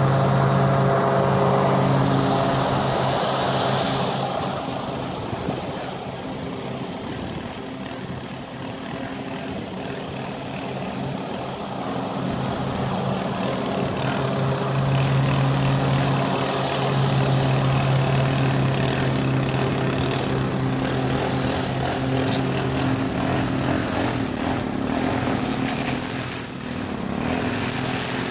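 Gasoline walk-behind lawn mower engine running steadily at mowing speed, its hum growing fainter and louder again as the mower moves away and back. Near the end a string trimmer's higher, buzzing engine joins in close by.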